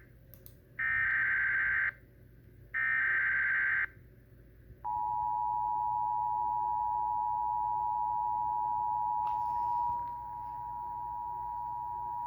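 Emergency Alert System alert tones. Two of the buzzing SAME header data bursts, each about a second long, come first. About five seconds in, the steady two-tone EAS attention signal starts and holds, getting a little quieter near the end.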